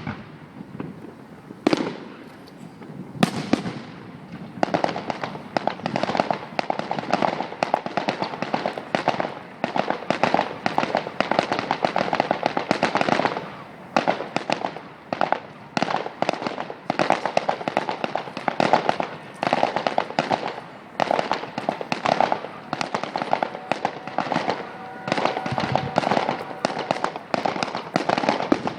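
Fireworks display: a few separate bangs in the first few seconds, then dense, continuous crackling of many rapid small bursts.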